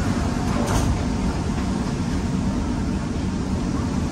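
Steady rumble and hiss of a moving vehicle, strongest in the low end.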